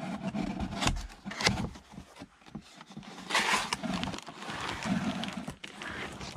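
Cardboard scraping and rubbing against cardboard as a long cardboard sleeve is slid and lifted out of a packed shipping box, with a few light knocks.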